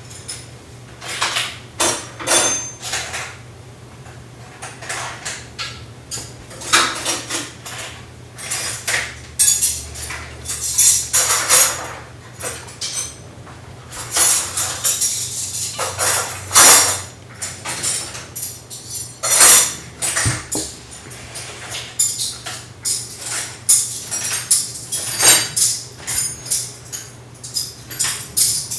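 A person eating a handful of salt: irregular short noisy chewing and mouth sounds, scattered through the whole stretch.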